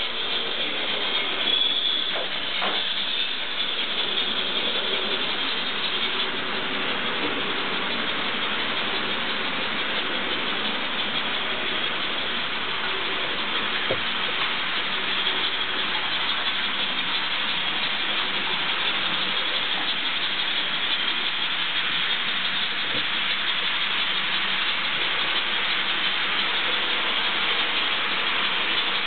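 Model trains running on a model railway layout: a steady rattling hiss of small wheels on the rails and the locomotives' little electric motors, with a couple of sharp clicks.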